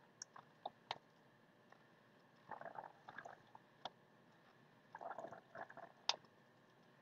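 Plastic squeeze bottle of lemon juice squeezed over a bowl of glaze, faint and sputtering, in two short bursts about two and a half and five seconds in, with a few light clicks before and after.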